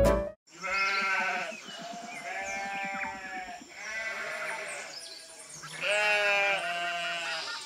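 Sheep bleating: four long, quavering bleats one after another.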